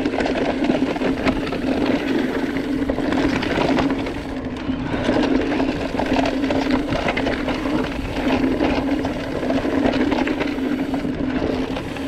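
Electric mountain bike riding a rough dirt trail: the steady hum of its drive motor runs under a constant rumble of tyres on dirt and rattling of the bike over the bumps.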